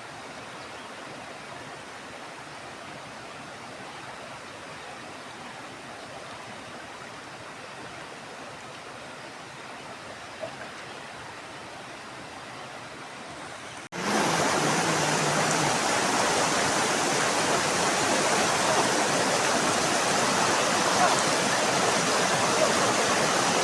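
Fast-flowing mountain river rushing, a steady wash of water. About two-thirds of the way through it jumps suddenly much louder and brighter.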